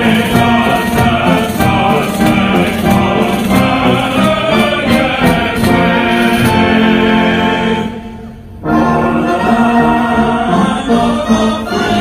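Military choir singing with a brass band accompaniment, played live over outdoor loudspeakers. The music breaks off for a moment about eight seconds in, then comes back.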